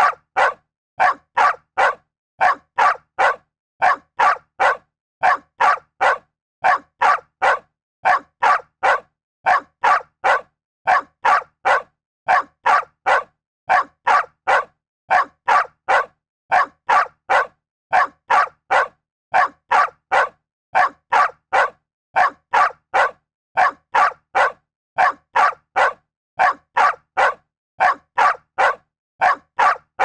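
A dog barking over and over in short, sharp barks, about two a second, with silence between each bark.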